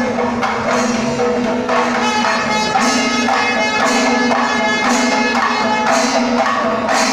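Panchavadhyam temple ensemble playing live: ilathalam cymbals and timila and maddalam drums in a steady rhythm under sustained kombu horn notes.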